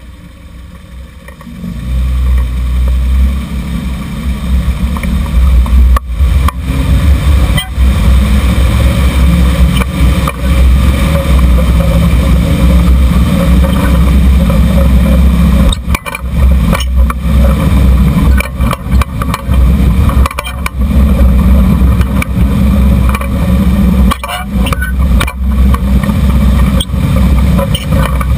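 1994 Jeep Cherokee XJ driving, heard from beside its front suspension under the vehicle: loud road and wind noise with a heavy low rumble that starts about two seconds in as it pulls away.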